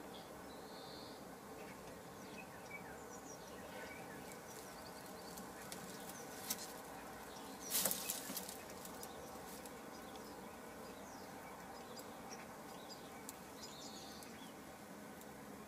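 Sussex hen shifting her feet in a straw nest: a brief rustle with a few sharp clicks about eight seconds in, over a faint steady background with a few faint bird chirps.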